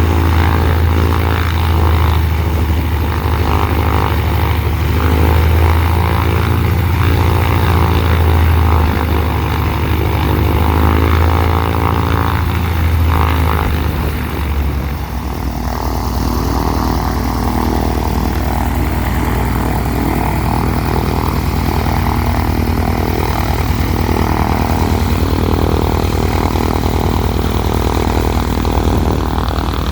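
Cessna 182's six-cylinder piston engine and propeller running up on its first run-up after a new cylinder and exhaust system. It runs at higher revs with the pitch wavering slightly, then about halfway through drops to lower, steady revs.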